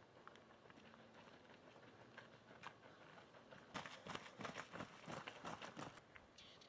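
Faint running footsteps on a dirt track: scattered light steps at first, then a quicker, louder patter of many strides from about four seconds in to about six seconds.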